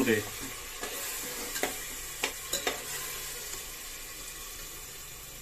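Tomato and green-chilli paste with spices sizzling in hot oil in a pressure cooker, being stirred with a metal ladle that clicks against the pot a few times in the first three seconds. The masala is being fried until the oil separates.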